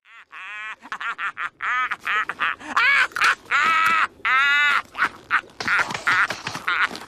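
Squidward's cartoon laugh: a long run of short, pitched vocal bursts that starts about half a second in and goes on in many bursts.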